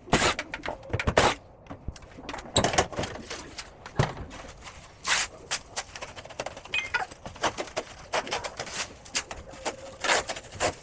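Irregular clicks, knocks and clatter of hard plastic parts and tools being handled while an LG one-way ceiling cassette air conditioner is taken apart for cleaning.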